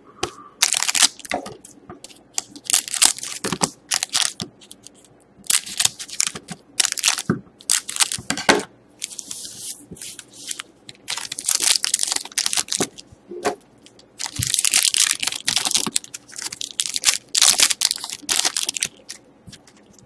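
Foil trading-card packs crinkling in the hands and being snipped open with scissors, with cards sliding out: a long series of short crackling rustles, some stretching to a second or so.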